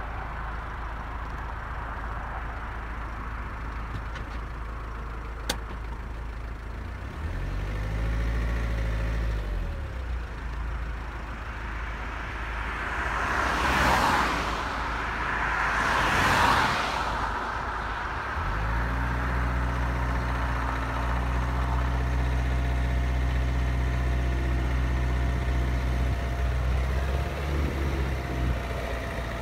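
Cars passing on the road, two in quick succession about halfway through, each swelling and fading. A car engine runs steadily close by for a few seconds about a quarter of the way in and again from about two-thirds through.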